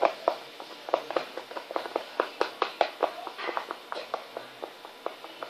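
A spoon stirring slime in a bowl, clicking against it in a quick, uneven run as the glue and boric-acid activator are mixed together.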